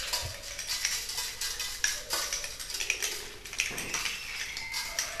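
A spatula scraping and clinking inside a bottle as oyster-mushroom grain spawn is dug out and dropped into a container: irregular small clicks, taps and scrapes.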